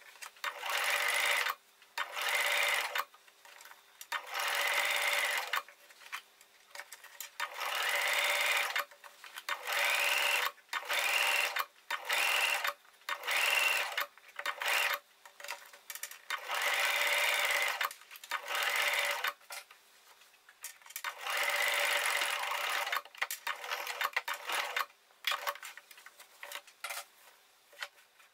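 Electric sewing machine stitching in short stop-start runs, each half a second to a second and a half long, with brief pauses between them while a curved seam is sewn. The runs grow shorter and further apart near the end.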